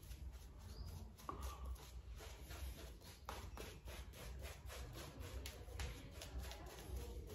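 Shaving brush working thick shaving-soap lather over the face and neck: a quick, uneven run of faint swishing, squelching strokes, several a second.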